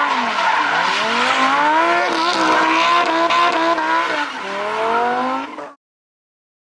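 A car engine revving as a logo sound effect. The pitch drops, climbs, holds steady, dips and climbs again, then cuts off abruptly about a second before the end.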